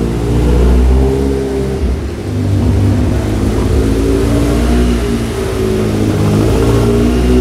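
Car engine pulling hard, its note repeatedly rising and dropping as the revs climb and fall.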